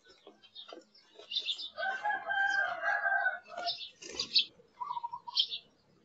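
A rooster crows once, starting about two seconds in, one long call of about a second and a half. Around it are the quick, high chirps of house sparrows. Near the end comes a short, pulsed, lower call.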